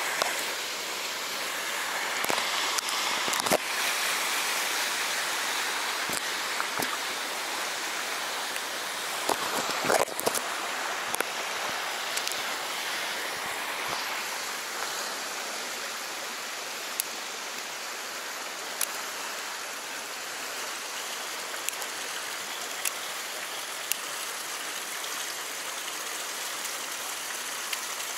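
Shallow stream water flowing over rocks with a steady rushing, broken by scattered short clicks and knocks, the loudest cluster about ten seconds in.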